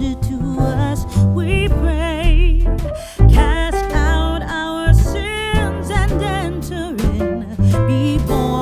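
Background music: a song with a singing voice, guitar and a steady bass beat.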